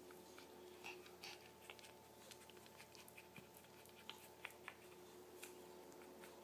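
Near silence: a steady faint hum with scattered small clicks and soft rustles.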